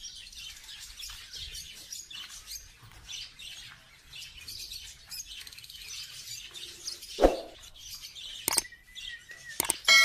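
African lovebird giving rapid, high-pitched chirps that run on through the whole stretch. A single louder knock comes about seven seconds in, followed by two sharp clicks near the end.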